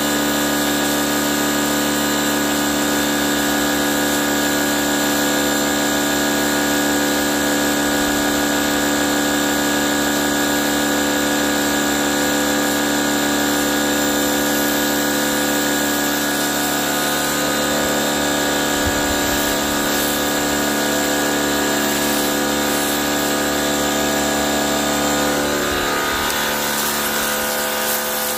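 Ryobi electric pressure washer's motor and pump running with a steady hum. Near the end the pitch shifts and the hiss of the water jet striking concrete joins in.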